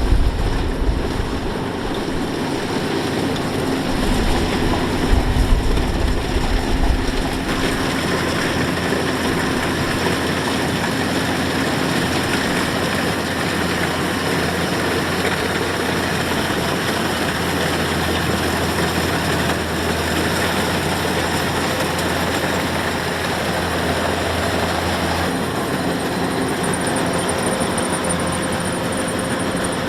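Kubota DC-105X rice combine harvester running steadily at work, its engine and machinery making a dense, continuous mechanical noise. Heavy low rumbling in the first few seconds eases about a quarter of the way in, and a faint high whine joins near the end.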